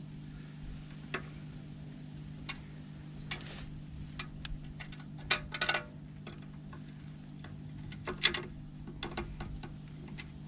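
Small metal clicks and clinks of a bolt, washer and steel bracket being handled and fitted by hand, scattered sharp taps with clusters about five and a half and eight seconds in, over a steady low hum.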